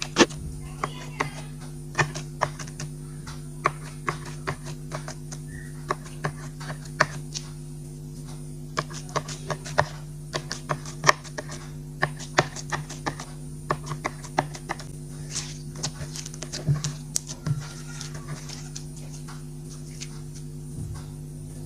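Clear slime being worked and squeezed by hand, giving irregular sticky clicks and pops, some sharper than others. A steady low hum runs underneath.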